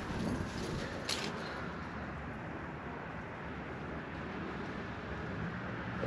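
Steady low outdoor background noise with no distinct source, and a faint single tick about a second in.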